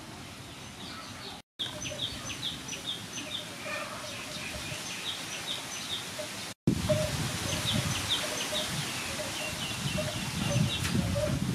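Birds chirping repeatedly, several short calls a second, over a low steady background noise. The sound drops out briefly twice.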